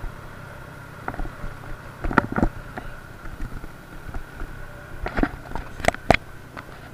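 Moped engine running steadily on the move, a constant hum with a thin whine above it. Several sharp knocks and rattles cut in at irregular moments, the loudest a little over five and six seconds in.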